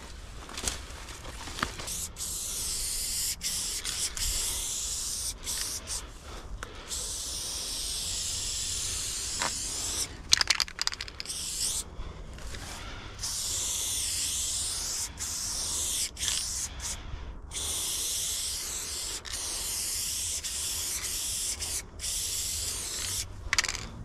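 Aerosol spray-paint can hissing in long passes of several seconds each, with short breaks between them. A short run of sharp clicks comes about ten seconds in.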